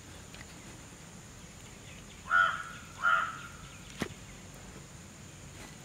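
A crow cawing twice in quick succession about halfway through, each a short harsh call, followed by a single sharp click.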